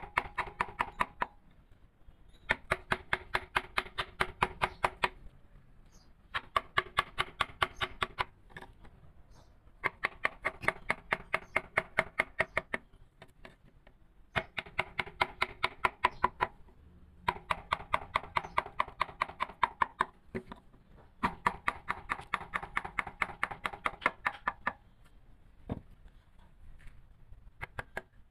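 Rapid, even tapping of a carving mallet driving a wood-carving chisel, about seven strikes a second, in bursts of two to three seconds with short pauses between.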